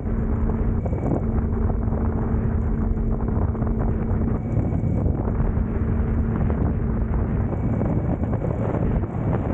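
Wind rushing over the microphone of a moving BMW K1600 GTL motorcycle, with the steady hum of its inline-six engine underneath at an even pitch, which breaks off briefly about a second in.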